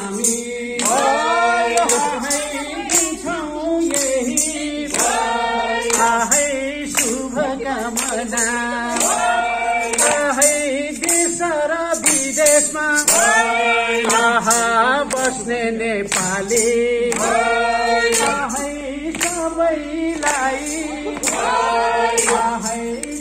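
A man singing a Nepali song through a handheld microphone, amplified, over music with a steady beat, with other voices joining in.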